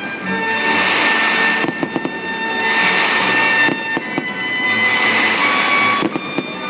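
Fireworks display going off: bursts of hiss follow one another every second or two, with sharp pops and bangs between them.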